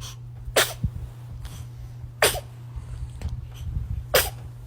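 Newborn baby sneezing three times, short sharp sneezes about two seconds apart, each ending in a small squeaky voiced tail.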